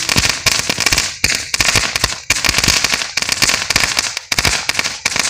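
Little Shark crackle-bomb firework crackling and popping without a break: a dense, rapid crackle with brief dips about once a second.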